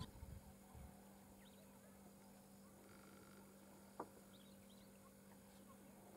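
Near silence: faint outdoor quiet with a steady low hum and a few faint bird chirps, broken by one short click about four seconds in.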